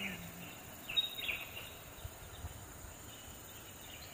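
Quiet outdoor ambience with a few faint, short high chirps in the first second and a half.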